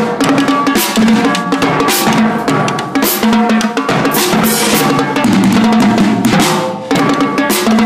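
Marching drumline playing a fast, dense cadence: rapid snare strokes over pitched bass drums, with ringing crashes, and a brief break just before the end.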